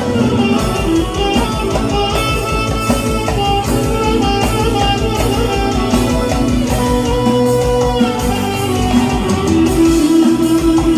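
Band music with a guitar lead melody over a fast, steady beat.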